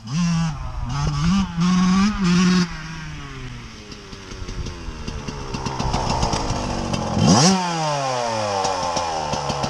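Yamaha YZ125 two-stroke dirt bike engine revving in sharp bursts, then running lower and growing louder as the bike comes closer. A quick rev blip about seven seconds in, then a lower, steadier idle near the end as the bike stops.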